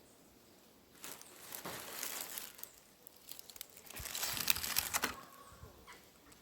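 Dry leaves rustling and crinkling in two bursts, the first about a second in and the second about four seconds in.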